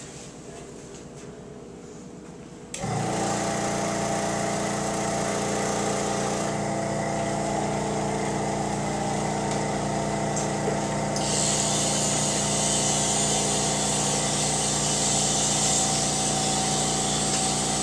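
Power-assisted liposuction system switched on about three seconds in: the handpiece's motor-driven vibrating cannula and the suction run with a steady mechanical buzz, and a hiss of suction grows louder around the middle.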